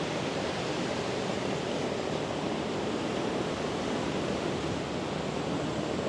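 Ocean surf washing on the shore, a steady even rush.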